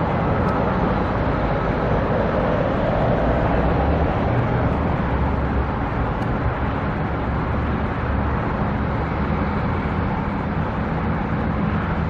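Steady rumble of road traffic passing close by.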